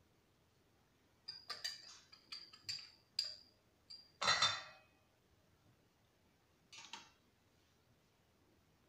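Light clinks and taps of a small dish and a wire whisk against a stainless-steel mixing bowl as cornstarch is tipped in. A run of quick ringing ticks leads to one louder clink about four seconds in, then a softer clink near seven seconds.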